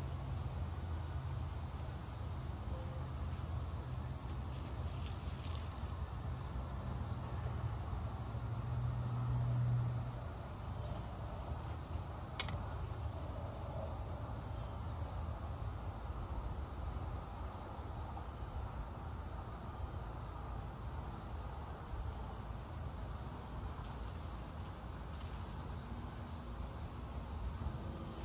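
Insects trilling steadily with a continuous high-pitched drone. Under it a low steady hum stops about ten seconds in, and a single sharp click comes a couple of seconds later.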